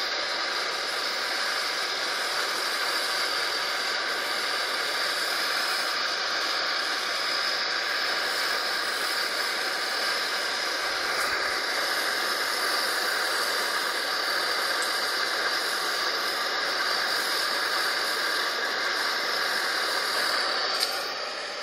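Backpacking gas-canister stove burning with a steady hiss under a small pot of water being heated. The hiss drops away near the end.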